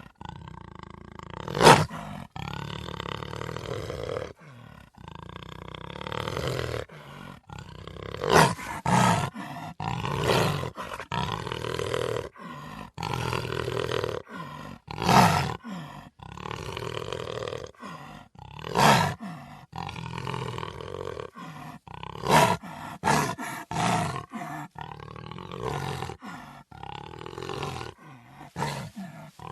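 Big cat growling and roaring in a string of calls, with several louder, sudden roars every few seconds and abrupt cuts between calls.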